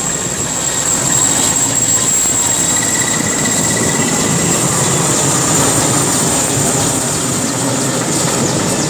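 Mi-17-type twin-turbine military helicopter passing overhead: steady rotor and engine noise with a high, steady whine.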